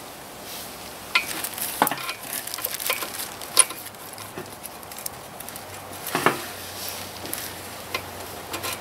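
Hand work on a motorcycle's swingarm pivot and suspension linkage: small metal parts clicking and clinking, irregular, with the sharpest clicks in a cluster in the first few seconds and another about six seconds in.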